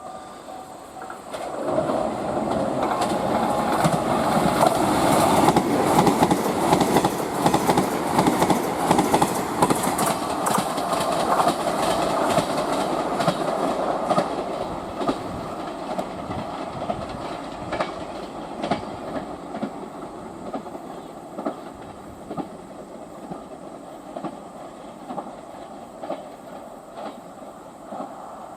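A train running past on the rails, wheels clattering over rail joints. It comes in abruptly about a second and a half in, is loudest for the next dozen seconds, then slowly fades away.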